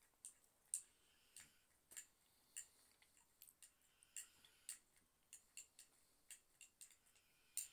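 Faint, irregular small clicks and crackles, about two or three a second, from hands handling something small on a table.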